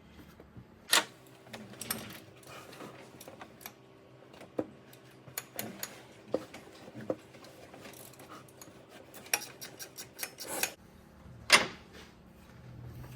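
Irregular metallic clicks and clinks of hand tools on the alternator's mounting bolts, with a sharper knock about a second in and another near the end.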